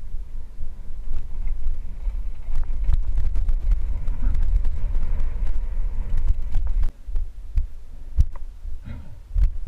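Downhill mountain bike rolling fast over a rocky dirt trail, heard from a helmet-mounted camera: a deep buffeting rumble of wind on the microphone, with sharp knocks and rattles from the tyres and bike hitting rocks. The rumble drops out briefly about seven seconds in.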